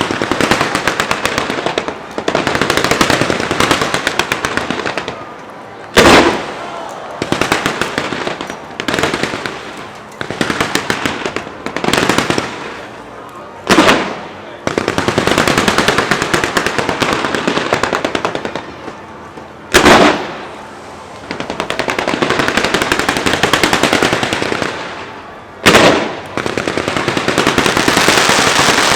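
Fireworks going off: long stretches of rapid crackling rattle, broken by four loud single bangs about six seconds apart.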